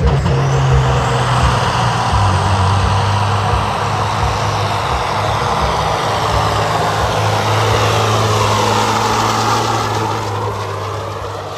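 Diesel semi tractor's engine at full throttle, hauling a weight-transfer sled down a pulling track, with a steady, heavy engine note under a loud roar. It passes close by and fades over the last second or two.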